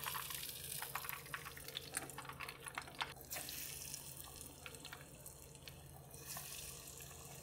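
Faint, irregular crackling and popping of hot coconut oil as coated goat cheese rounds fry in a small saucepan.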